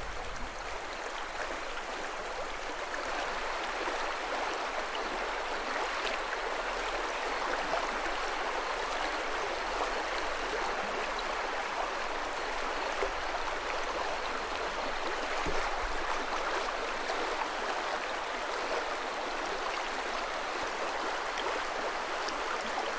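Fast river water running steadily over riffles and rocks.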